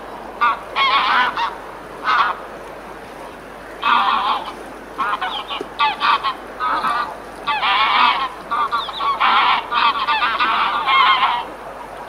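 Geese honking, many loud calls in overlapping bouts with short gaps between them.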